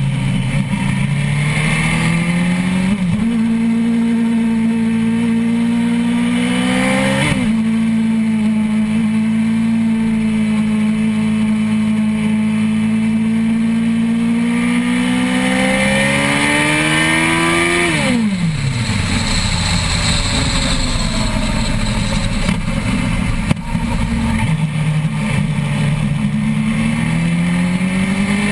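Suzuki GSX-R1000's inline-four engine under hard acceleration, its pitch climbing and dropping sharply at two quick upshifts, then holding high revs for several seconds. About two-thirds of the way through the revs fall steeply as the throttle closes, and near the end they climb again under acceleration. Steady wind noise runs underneath.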